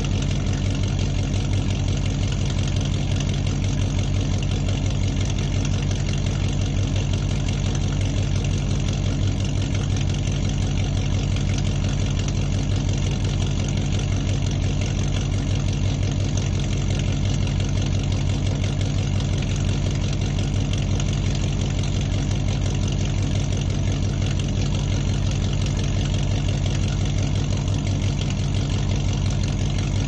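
Muscle car engine idling steadily in a large room, a deep, even throb with no revving.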